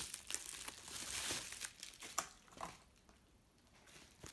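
Bubble wrap crinkling and crackling as books are pulled out of a packed cardboard box, with scattered sharp clicks. It is busiest in the first couple of seconds and dies down after about three seconds.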